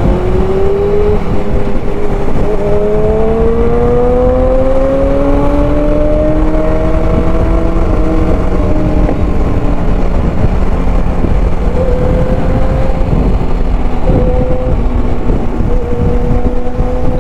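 Motorcycle engines at speed, their pitch climbing steadily for several seconds as they accelerate, then holding level at a cruise, over heavy wind rush on a riding microphone.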